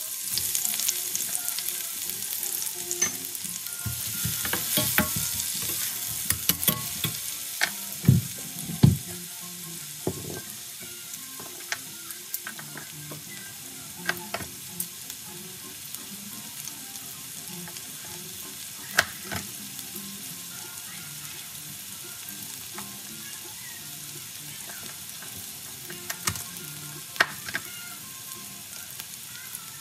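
Chopped onions sizzling in oil in a stainless steel pan, with a slotted metal spatula knocking and scraping against the pan now and then. The sizzle is loudest for the first several seconds, then settles to a quieter steady hiss.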